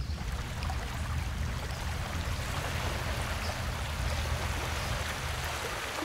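A steady rushing noise, like moving water or air, over a continuous low drone.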